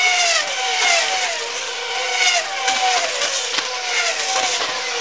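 Formula One cars' 2.4-litre V8 engines passing at speed one after another as the field runs bunched on the opening lap, a new car every half second or so. Each high engine note drops in pitch as the car goes by.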